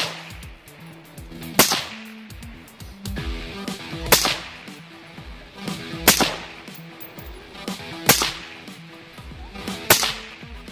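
AR-style rifle fitted with a Dakota suppressor firing six single shots about two seconds apart, over background guitar music.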